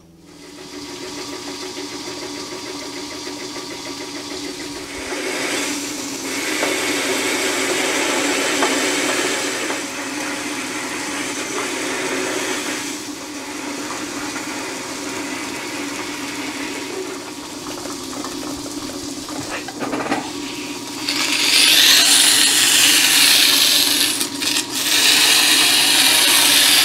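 Metal lathe running steadily with a metal hub spinning in the chuck, and a cutting tool turning an angle on the hub, its cutting noise brighter for several seconds from about five seconds in. Near the end comes a loud hiss of 120-grit abrasive cloth sanding the spinning part.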